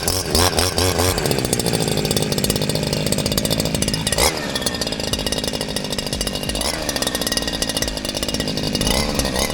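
Two-stroke petrol grass trimmer running hard while cutting overgrown weeds. Its revs swing up and down in the first second, then it runs steadily at high speed. There is a brief sharp hit about four seconds in.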